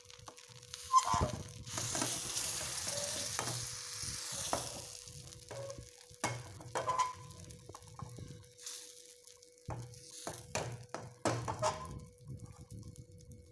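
Appam rice batter sizzling in a hot nonstick pan, loudest over the first few seconds, with short knocks and scrapes of the pan being moved on the stove.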